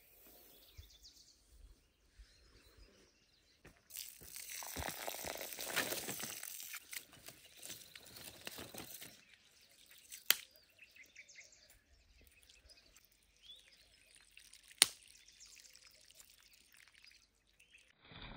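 Water poured into a bowl of dry rice for about five seconds, then quieter splashing as the rice is rinsed by hand, with two sharp clicks along the way.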